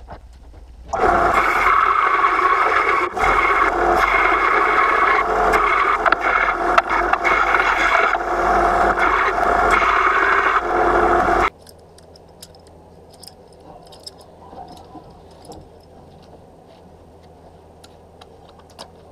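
Scheppach BD7500 belt sander grinding a metal part pressed against its belt, a loud steady scraping that starts about a second in and cuts off abruptly about two thirds of the way through. Afterwards only faint handling noise and small clicks remain.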